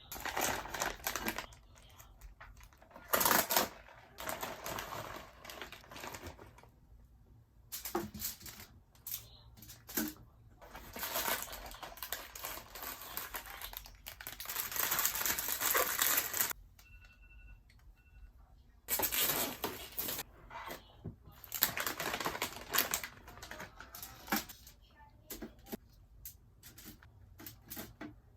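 Close-up crackling and crunching in irregular bursts of a few seconds each, separated by short pauses: the crinkle of food packaging and the crunch of fried seafood being eaten.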